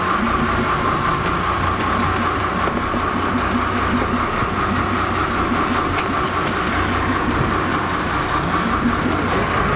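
Sport-fishing boat's engine running steadily, with the rush of the churning wake behind the stern.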